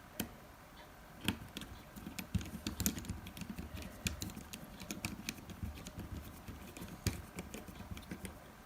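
Small irregular clicks and taps of a screwdriver and the plastic and metal parts of a Nokia 6150 mobile phone being handled as the boards are screwed into the frame, over a faint rubbing of hands on the bench.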